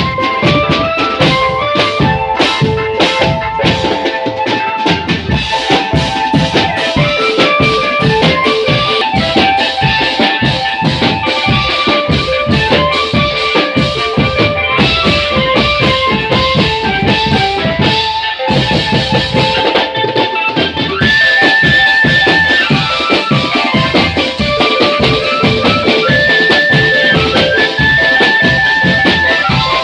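Marching drum band playing: dense drum beats under a melody of short stepping notes, with a warbling held high note at about two-thirds of the way through and again near the end, and a brief break a little past halfway.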